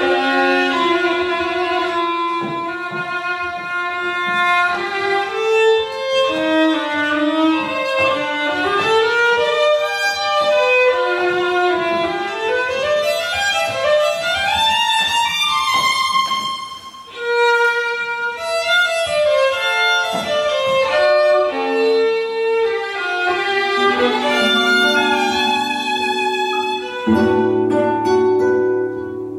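Live solo violin playing a bowed melody of sustained notes and quick rising runs, with a brief drop in volume about two-thirds of the way through. Near the end, lower sustained notes join underneath.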